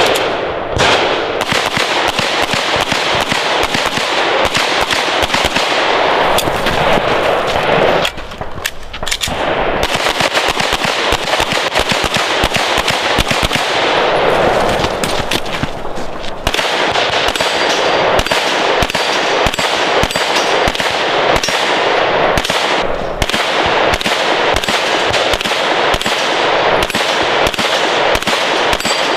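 Handgun shots fired in quick strings at steel targets, shot after shot with little pause, with short lulls about eight and sixteen seconds in.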